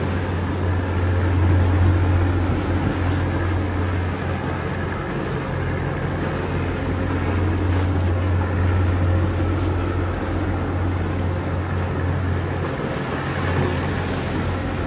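Steady low drone of a coast guard patrol vessel's engines heard from on board, with wind and sea wash over it.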